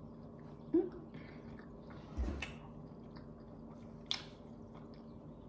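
A person eating, biting and chewing food, with crisp crunchy sounds about two seconds in and again about four seconds in. A short voiced sound comes about a second in.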